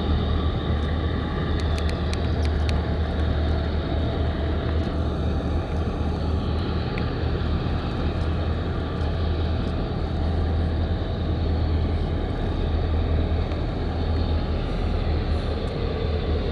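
Steady low rumble of a boat's engine, with the noise of water and wind over it.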